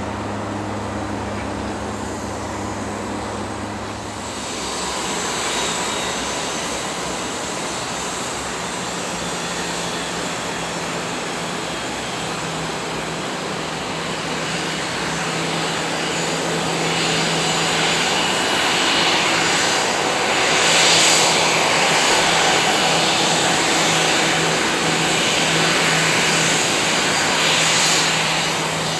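Airbus A321's CFM56 jet engines at taxi power: a steady rushing whine over a low hum, growing louder as the aircraft taxis close by. For the first few seconds a ground vehicle's steady engine drone is heard instead.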